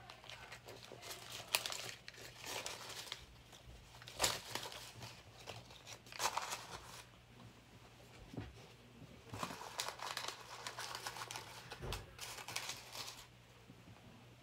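Paper banknotes being handled: irregular rustling and crinkling in bursts, with a quieter pause about halfway through, over a faint steady low hum.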